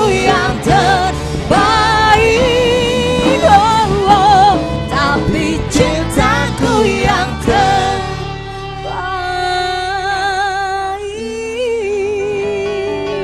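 Live band playing an Indonesian pop ballad, with electronic keyboard, electric guitar and bass under a woman singing with vibrato. About eight seconds in the music gets softer, and a long note is held near the end.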